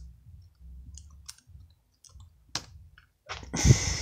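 Laptop keyboard keys being pressed: a few separate clicks, one louder than the rest, over a low hum. Near the end comes a louder rushing noise with low thumps.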